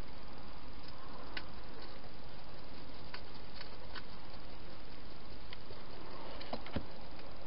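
Wild hedgehog feeding at bowls inside a plastic feeding box: scattered sharp clicks and small knocks over a steady hiss, with a short burst of louder clicks and a low knock near the end.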